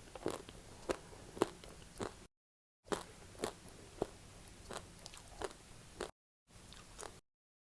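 Close-up biting and chewing of chocolate-coated ice cream: short, crisp cracks as the chocolate shell breaks, then soft wet chewing, broken by a few abrupt cuts to dead silence.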